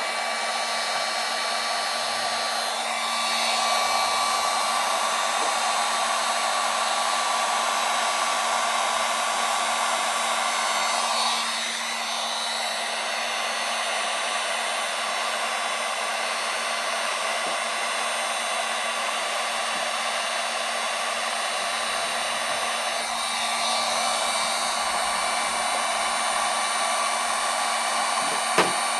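Wagner electric heat gun blowing steadily, a rush of hot air over a steady motor whine, heating a dented aluminium panel so the work-hardened metal releases for the pull. Its loudness shifts a little as the gun is moved, and there is one short click near the end.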